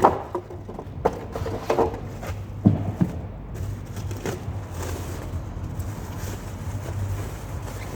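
Handling noises as parts are moved about: several short knocks and rustles in the first three seconds, then fainter rustling over a steady low hum.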